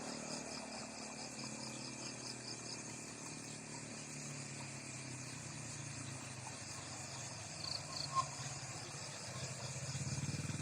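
Faint insect chirping, a quick even pulse of high chirps that fades out after about three seconds, over a low steady hum.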